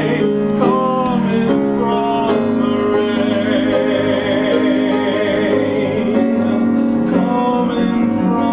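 A man singing a slow ballad with long held notes over instrumental accompaniment.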